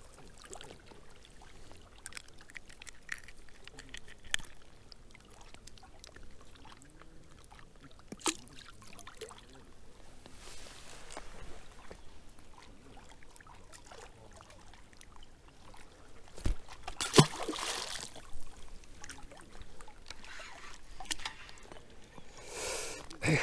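River water trickling and lapping at the bank, with scattered small clicks and knocks. About seventeen seconds in a sharp knock is followed by a short rush of noise, and another rush of noise comes near the end.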